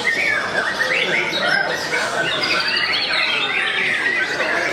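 Songbirds singing in a bird-singing contest, several voices overlapping in a dense, continuous run of rapid chirps, trills and whistles, with a longer high note near the end.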